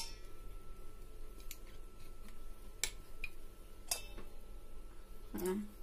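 Metal spoon clicking lightly against a stainless steel mixing bowl a handful of times while oyster sauce is scraped off it, over a faint steady hum.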